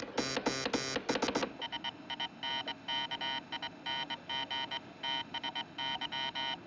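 Morse code on a ship's wireless telegraph, a buzzy tone keyed on and off in dots and dashes, carrying the message to the Carpathia that the engine room is flooding. A louder, deeper run of quick signals fills the first second and a half, then a thinner tone goes on in even dots and dashes.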